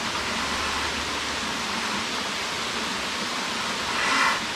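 Steady rushing of a small waterfall and stream in the gorge below, with a brief louder hiss about four seconds in.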